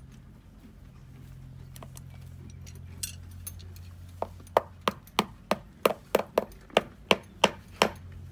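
Farrier's hammer tapping at a horse's hoof: a quick, even run of sharp strikes about three a second, starting around four seconds in after a couple of lighter knocks. A low steady hum sits underneath.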